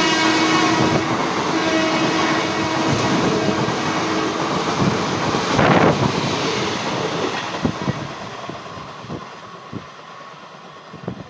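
WAP-4 electric locomotive's horn sounding a steady blast that stops about three seconds in. The passenger train then runs past with a loud rush about six seconds in, and wheel clicks over the rail joints fade as it goes off.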